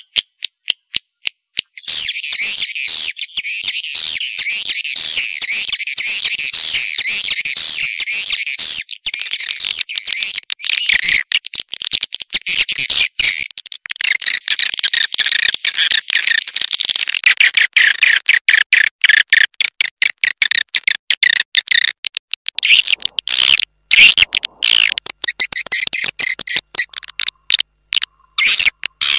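Swiftlet lure call: dense, high-pitched twittering and rapid clicking chirps of edible-nest swiftlets, played as a track to call swiftlets into a nesting house. A few scattered clicks lead in before the twittering turns continuous about two seconds in, then grows choppier.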